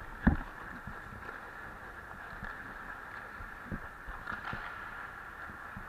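Ice hockey skates gliding and scraping on rink ice, heard from a skater-worn camera, with one sharp knock just after the start and a few lighter knocks later on.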